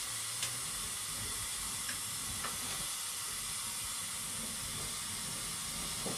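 Steady high hiss of background room tone, with one faint click about half a second in. No engine is running and no kick-start strokes are heard.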